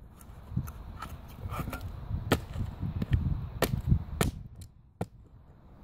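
High-heeled pumps stepping on dry dirt and plastic toy pieces, giving a series of separate sharp clicks and cracks spread over the few seconds.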